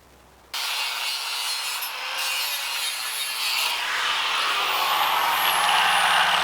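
Abrasive power tool grinding against a surface, a steady gritty rasp that starts abruptly about half a second in and slowly grows louder.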